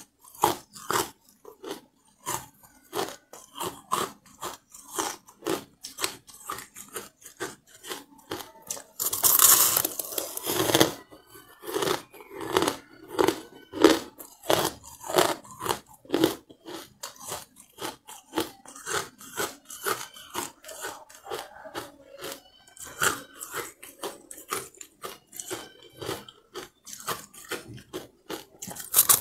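Carbonated ice being chewed close to the microphone: a steady run of crisp crunches, about two to three a second, with a longer, louder bout of crunching about a third of the way in.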